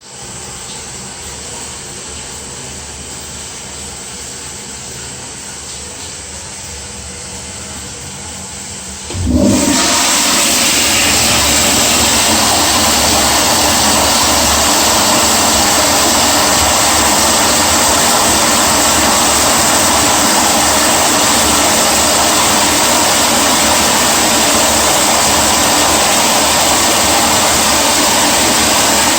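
Toilet flushing: a steady hiss of water, then about nine seconds in a sudden loud rush of water that keeps going, steady and unbroken.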